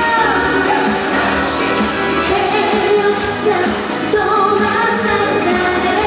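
Woman singing a Korean trot song live through a microphone over amplified band backing.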